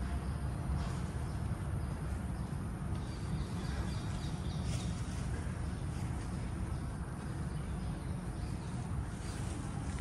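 Steady outdoor background rumble, heaviest in the low range, with a few faint high chirps a few seconds in.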